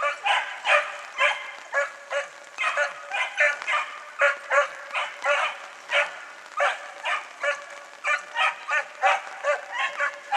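Young small Italian hare hounds (piccolo lepraiolo) giving tongue. A rapid, unbroken run of high yelping barks comes some two to three a second, the cry of hounds working a scent.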